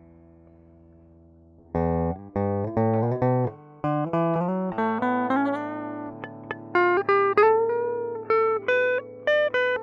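Electric guitar played through effects pedals. A chord rings out and fades, then about two seconds in a melodic line of single picked notes begins, with one note bent and held near the end.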